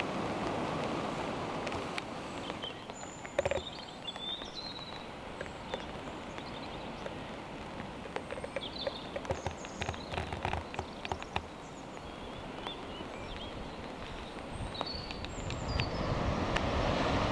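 Outdoor coastal ambience on a camera microphone. Wind and surf noise eases after about two seconds into a quieter stretch with short bird chirps and scattered small clicks, then swells again near the end.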